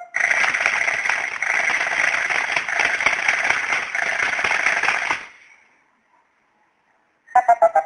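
Bomb-shaped novelty alarm clock sounding its alarm through its small speaker: a loud, steady crackling hiss for about five seconds, which fades out, then after a short silence its plucked electronic melody starts again near the end.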